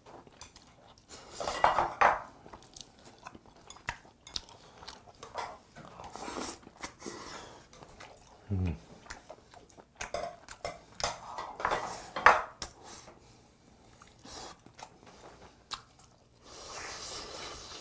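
Close-up eating sounds: chewing, with chopsticks and a metal spoon clicking against ceramic dishes in short irregular taps.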